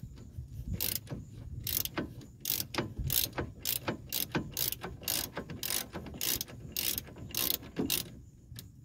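Socket ratchet wrench swung back and forth, a short run of pawl clicks on each return stroke about twice a second, as a broken-loose 17 mm brake caliper bracket bolt is backed out. The clicking stops near the end.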